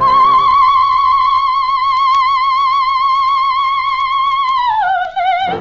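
Female singer holding one long, high note with a wide vibrato, then sliding down to a lower note near the end: the big closing note of a Spanish song.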